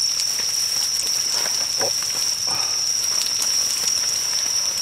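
Deep-frying oil crackling and spitting around battered vegetables. A steady high-pitched insect trill runs over it.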